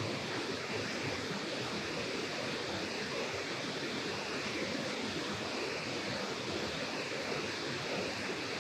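Steady rush of water pouring over a low dam's spillway, an even roar without a break.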